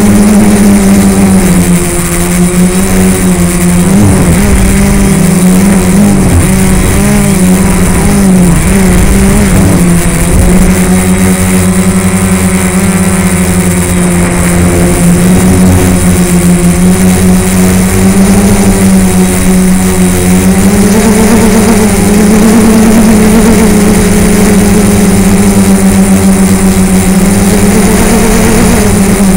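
Quadcopter's electric motors and propellers droning, heard from the aircraft's own onboard camera: a loud steady hum whose pitch wavers up and down as the throttle changes, most in the first third and again about two-thirds of the way through.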